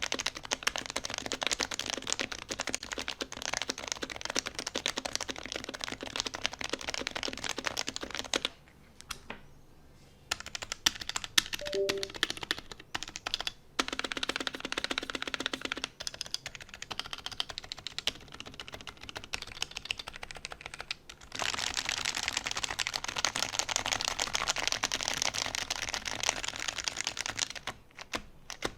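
Typing on a custom keyboard with lubed Topre capacitive rubber-dome switches taken from an HHKB Pro 2, an aluminum plate and blank keycaps: fast, continuous keystrokes. The typing stops for about a second and a half some nine seconds in, resumes with scattered strokes, then runs dense again.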